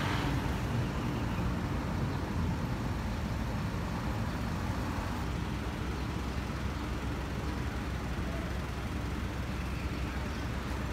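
Steady city street traffic: engines of buses, minibuses and cars running along the road, a continuous low rumble.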